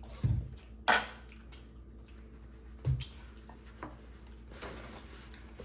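Crab leg shells being handled and cracked at a table: a few sharp clicks, plus two dull knocks, one soon after the start and one about three seconds in.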